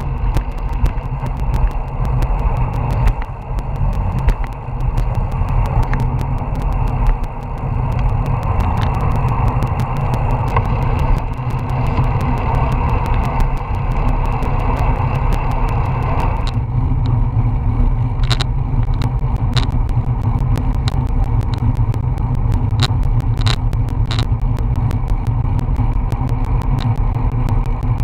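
Wind rushing over a bicycle-mounted action camera's microphone while riding, with a steady low rumble of road and tyre noise and frequent sharp clicks from bumps and rattles. About two-thirds of the way through, the higher hiss drops away and the clicks become fewer and sharper.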